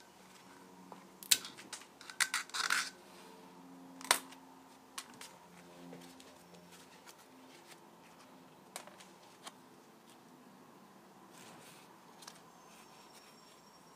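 Sharp clicks and taps with a short scrape about two to three seconds in, the loudest click about four seconds in, then a few quieter ticks: small shims being pried out of a Kohler engine flywheel's magnet ring and the flywheel handled on a sheet-metal workbench.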